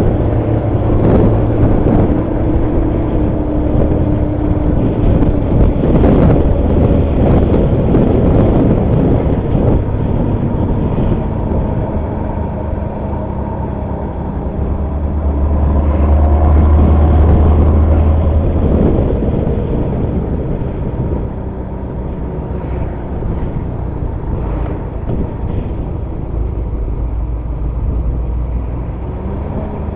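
Intercity bus's diesel engine and exhaust running, a low rumble that swells louder about halfway through, then eases off. A few brief knocks are heard along the way.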